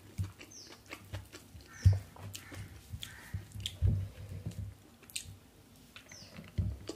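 Fingers squishing and mixing biryani rice on a plate, with moist clicks and a few soft thumps, the loudest about two seconds in; a handful goes into the mouth near the end. Short high falling chirps repeat now and then in the background.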